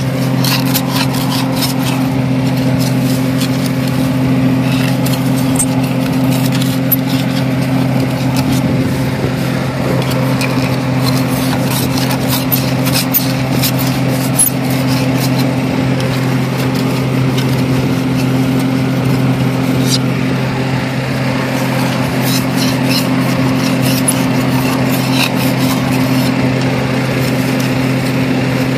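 Oliver 1800 tractor engine idling steadily. Over it come scattered scrapes and clicks as caked soil is cleared by hand off the steel moldboards of the plow, which are not scouring.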